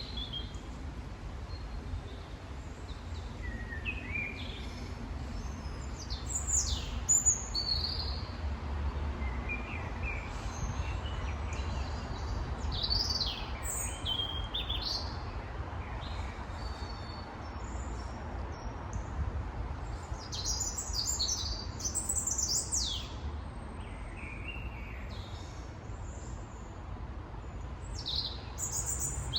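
Wild birds chirping and calling in scattered bursts of short, high, pitch-sweeping notes, busiest around a quarter of the way in, the middle and two-thirds through, over a steady low background rumble.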